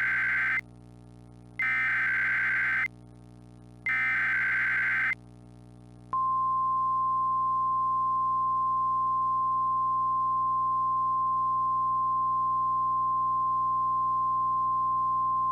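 Emergency Alert System SAME header: three harsh digital data bursts, each a little over a second long with a second's gap between them. About six seconds in, a single steady high alert tone starts, the weather-radio warning alarm that opens an emergency broadcast.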